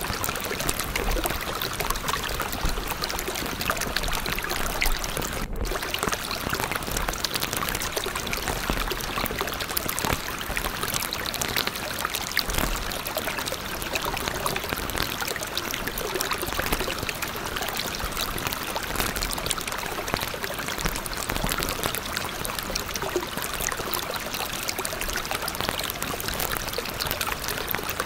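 Steady rushing water, like a stream or pouring water, with an even, unbroken hiss. It cuts out for a split second about five and a half seconds in.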